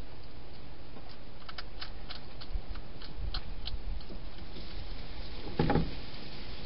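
Wild hedgehog eating inside a plastic-box feeding station: a run of small, sharp crunching clicks, then one louder short thump near the end.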